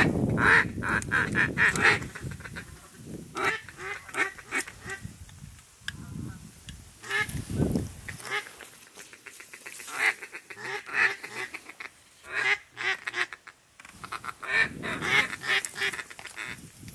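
Duck quacking in repeated runs of quick, short notes, several bursts with brief pauses between them, in the rhythm of mallard-type calling.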